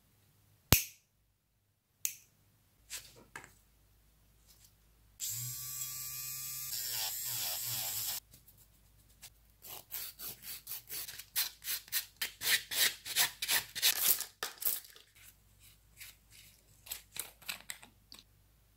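A hand-held nail file rasping back and forth across fingernails in quick strokes, about four a second. It is preceded by two sharp clicks near the start and a steady buzzing noise lasting about three seconds.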